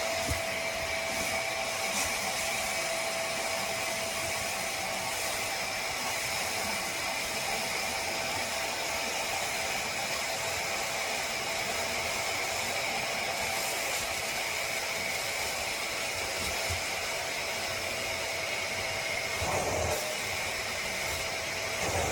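BISSELL Little Green portable carpet and upholstery cleaner running steadily: a constant airy hiss with a steady motor whine.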